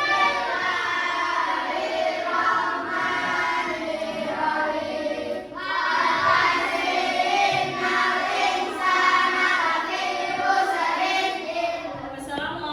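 A group of children singing together, with a brief pause between phrases about five and a half seconds in.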